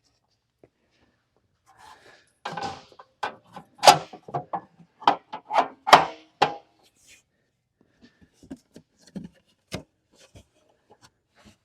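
Wooden fence pickets knocking and scraping against each other as they are pushed tight together in a fence frame. A dense run of sharp knocks and rubbing comes over a few seconds, then only a few light taps.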